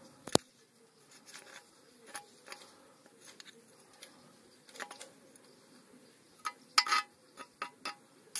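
Metal rod tapping and scraping among broken camshaft gear fragments in the bottom of a diesel tractor's oil pan: scattered sharp metallic clinks, one loud one right at the start, a few faint ones, then a close cluster near the end.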